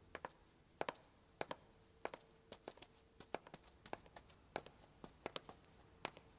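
Footsteps of several people on wooden floorboards and a wooden staircase: short, sharp, irregular knocks, two or three a second.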